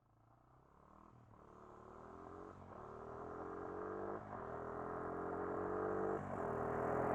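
Quad bike (ATV) engine approaching and accelerating, growing steadily louder. Its pitch climbs and drops back at each gear change, four times.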